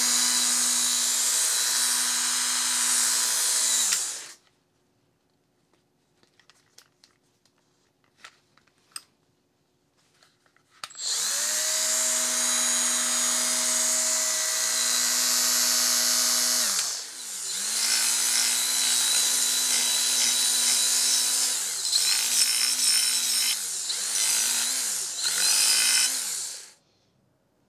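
Milwaukee M12 Fuel die grinder converted to a half-inch belt band file, running free with a steady motor tone for about four seconds, then stopping. After a pause with a few faint clicks it spins up again and runs steadily. In the second half come several shorter runs as the trigger is worked, the pitch dipping and recovering as the belt is pressed against the edge of a steel angle. It stops shortly before the end.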